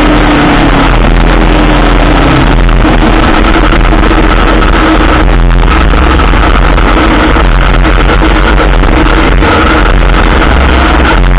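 Aprilia Tuono motorcycle engine running low in the revs as the bike slows down, buried under heavy, distorted wind noise on the head-mounted camera's microphone.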